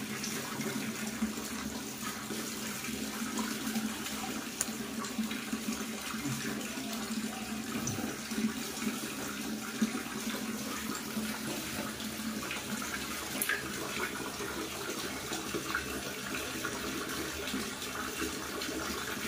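Water running and splashing steadily in a plastic basin as a young monkey is bathed in it by hand, with a few light knocks and splashes.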